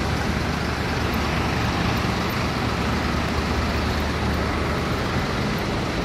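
Steady background roar of a large airport terminal hall, an even wash of noise with a low hum underneath and no distinct events.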